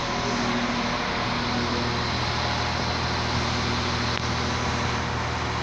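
Diesel engine of a CAF diesel multiple unit running steadily, a low even drone with a hiss over it.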